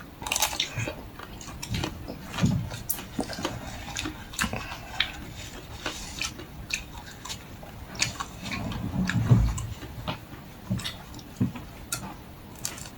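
Biting and chewing through the crunchy chocolate shell of a Magnum-style ice cream bar, close to the microphone: a run of sharp, irregular crackles and crunches.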